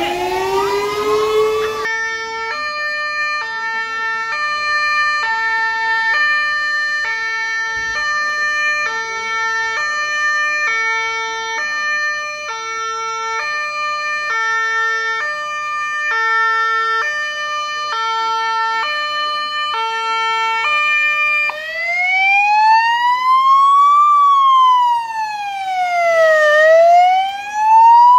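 Fire engine sirens: a rising wail that switches to a two-tone siren alternating high and low about once a second, then, about three-quarters of the way through, to a slow wail sweeping up and down every few seconds.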